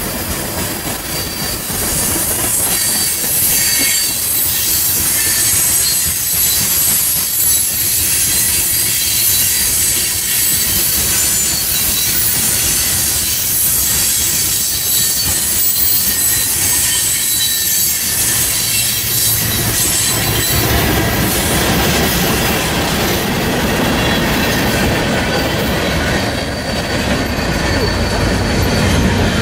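Freight train of tank cars rolling past close by, its steel wheels squealing against the rails with a high, steady screech over the rumble of the cars. The low rumble grows fuller about two-thirds of the way through.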